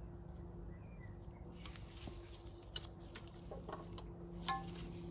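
A few light metallic clicks and taps as a clamp is tightened on the mower. The sharpest clink, about four and a half seconds in, rings briefly, over a steady low hum.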